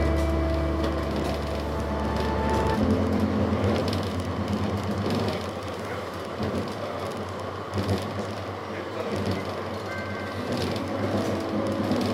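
Interior of a moving tram running on rails: steady rolling noise with a few faint steady tones, and a deep hum that cuts off about three seconds in.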